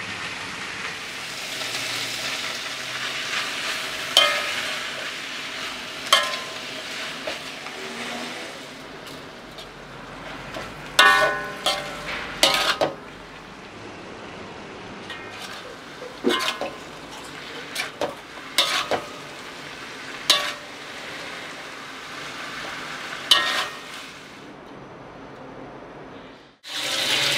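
Water spinach stir-frying in a steel wok: a steady sizzle, with a metal spatula scraping and clanging against the wok every second or two, each strike ringing briefly. The sizzle fades in the last few seconds.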